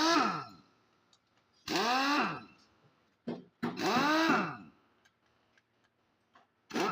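A man's voice in short separate utterances with quiet gaps between them; no engine running is heard.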